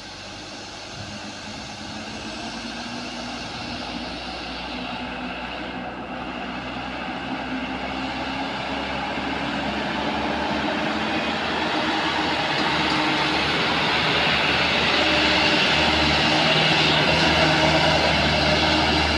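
Diesel engines of two light trucks labouring up a steep grade, growing steadily louder as the trucks approach and pass close by.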